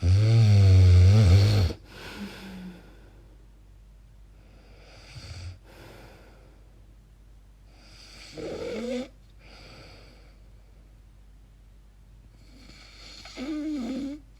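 A sleeping woman snoring: one loud, long, wavering snore at the start, then quieter snoring breaths about eight seconds in and again near the end. These are the strange sleep noises she wonders may be sleep apnea.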